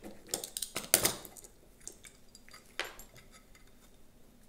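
Metallic clicks and clinks of a hand tool working a small screw loose from the tail-tidy bracket: a quick cluster of sharp clicks in the first second or so, one more near three seconds, then a few faint ticks.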